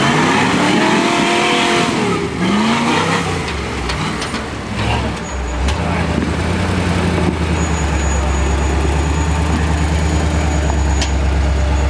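Engine of a rock-crawling Toyota FJ40 Land Cruiser revving up and down as it climbs over boulders. After about five seconds it settles into a steady run.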